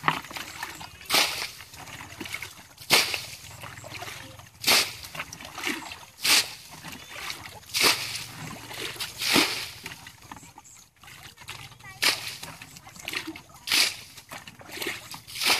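Muddy water splashing as it is bailed out of a shallow ditch with a plastic bucket, one splash about every second and a half to two seconds, with a brief pause about two-thirds of the way through.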